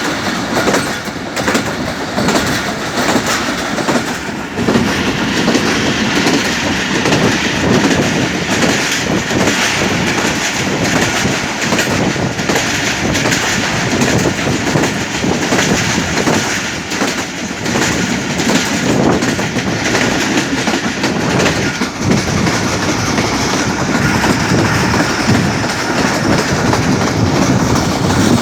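Pakistan Railways Rahman Baba Express running at speed, a steady loud rumble with the wheels clattering over the rail joints.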